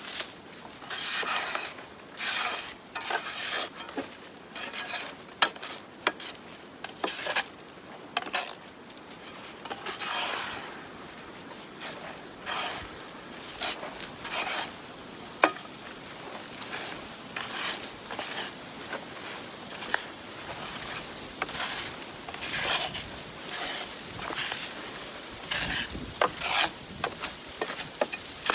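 Soil being pushed back and forth across a homemade soil sifter's screen: repeated gritty scraping strokes at an uneven pace, with now and then a sharp tick of a stone or clod.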